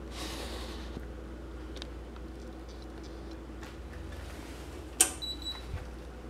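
A three-phase induction motor, wired for 208 V, runs on 115 V from a homemade IGBT inverter drive with a low steady hum. There are a few faint ticks, and a sharp click about five seconds in is followed by a brief high whine.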